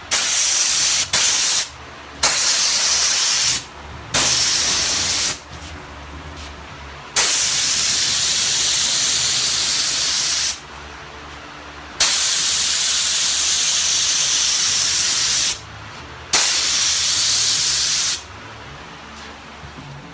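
Air-fed paint spray gun spraying lacquer primer: loud hissing bursts of air and atomised finish, starting and stopping sharply as the trigger is pulled and released, about seven passes, the longer ones three to four seconds. A low hum carries on beneath, between the bursts.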